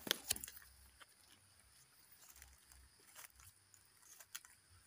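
Dry leaf litter and grass crackling under footsteps and hands while wild mushrooms are picked. Two sharp crackles come right at the start, then scattered faint rustles and snaps, over a faint steady high-pitched background.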